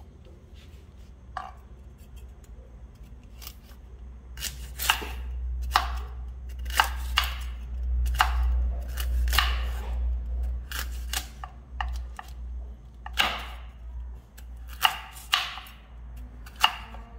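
Knife chopping through hard, ripe noni fruit: a dozen or so sharp chops at an uneven pace, most of them from about four seconds in, over a steady low rumble.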